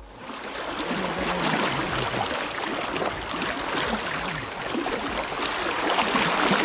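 Fast, shallow river current rushing and splashing steadily around a wading angler's legs, close to the microphone at the water surface.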